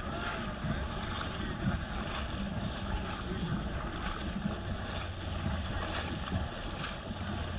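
Wind buffeting the microphone in a steady low rumble, over the wash of shallow sea water around a wading horse.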